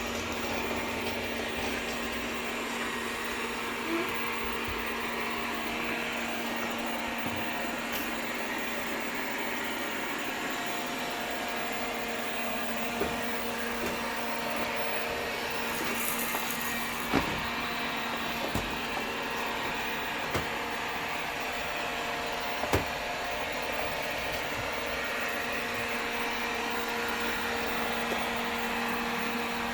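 Vacuum cleaner running steadily with a constant hum, broken by a few sharp knocks around the middle.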